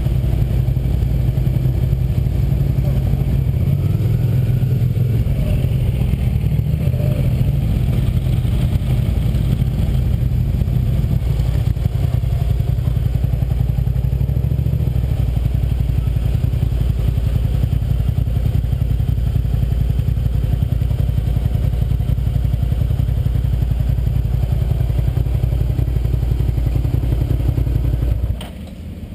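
Suzuki SV650's V-twin engine running steadily at low speed and idle, then switched off about a second before the end, its low steady sound cutting out suddenly.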